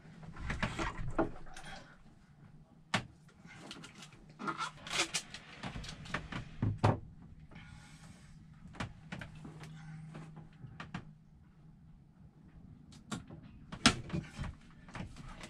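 Hands handling sensor wiring and tape: scattered rustles, light clicks and knocks, over a faint steady low hum.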